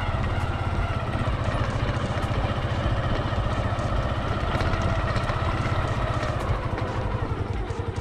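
Motorcycle engine running at low speed, a steady fast low throb as the bike is ridden along a rough dirt track.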